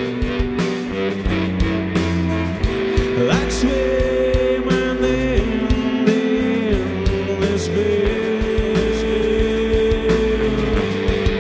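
Live psychedelic rock band playing: electric guitar, bass guitar and drums, with a steady drum beat, sustained guitar notes with a few bends, and a male voice singing.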